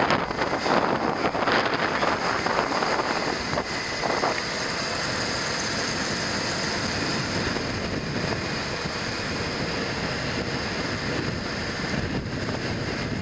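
Wind rushing over the microphone of a moving motor scooter, with the scooter's engine and tyre noise running underneath. It is gustier and louder for the first few seconds, then settles into an even rush.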